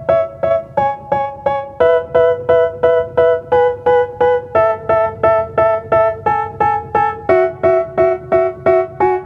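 Background music: a keyboard plays short repeated chords at a steady pulse of about three a second, moving to a new chord every second or few.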